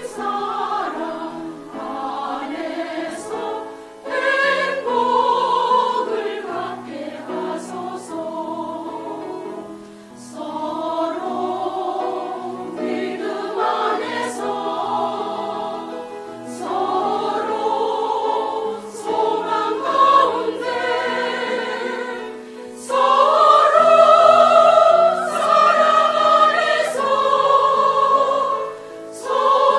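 Church choir singing a hymn in several parts, phrase after phrase, growing louder near the end.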